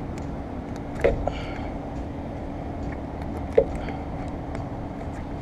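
Light clicks and knocks of hand work on windshield trim with a plastic pry tool, with a couple of short squeaks, over a steady background hum.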